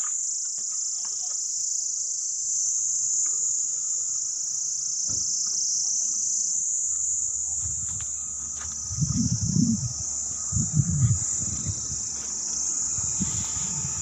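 A chorus of insects chirring in one steady, high-pitched drone. About nine and eleven seconds in, two bursts of low rumble rise over it.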